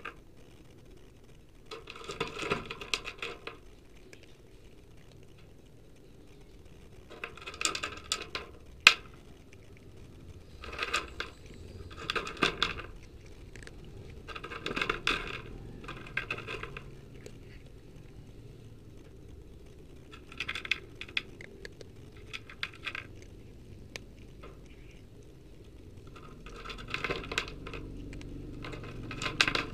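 Cat crunching dry kibble close to the microphone, in bouts of chewing one to two seconds long with short pauses between, and a single sharp click about nine seconds in.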